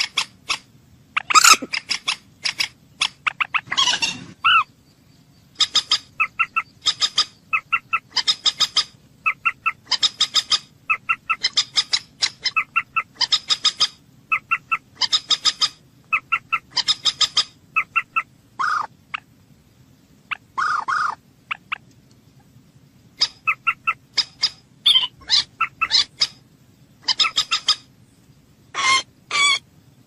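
Common moorhen calling: short, sharp notes repeated in steady runs of about two a second, broken by a few short pauses.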